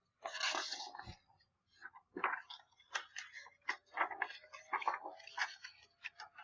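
Faint, irregular crackling and clicking: a scatter of short ticks and rustles with no steady rhythm.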